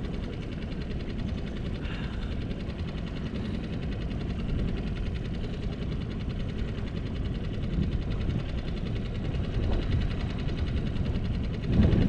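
Wind buffeting the camera microphone on open water: a steady low rumble that surges louder near the end.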